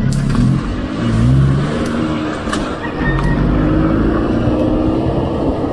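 Street traffic close by: car and motorcycle engines running, their pitch slowly rising and falling, over a steady rushing noise.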